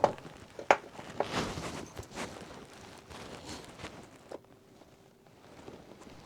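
Scattered knocks, clicks and rustling of kitchen things being handled, as the drained noodles are readied for their teaspoon of sesame oil. A faint steady hum sets in about four seconds in.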